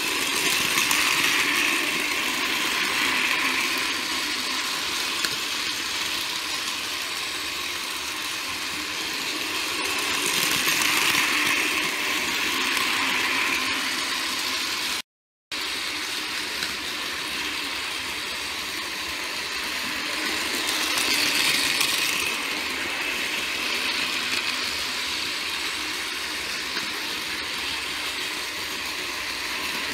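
Several battery-powered Plarail toy trains running on plastic track: a steady, high-pitched whir of small gear motors. It swells louder roughly every ten seconds as a train comes near, and cuts out briefly about halfway through.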